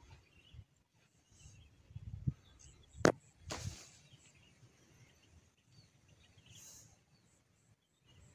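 Outdoor ambience over open rice paddies: an uneven low rumble of wind on the microphone with faint bird chirps. A single sharp knock about three seconds in, followed by a short rustle.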